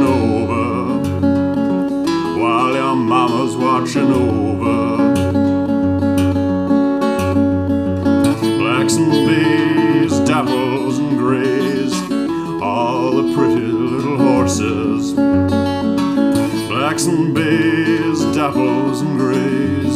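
Solo acoustic guitar playing an instrumental passage of a slow traditional lullaby, picked and strummed, with low bass notes under sustained higher notes.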